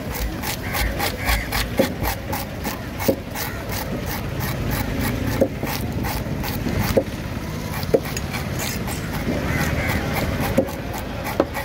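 Wooden nail-studded fish scaler scraping the scales off a red grouper on a wooden chopping block: quick rasping strokes, about three a second, with a few sharper knocks now and then.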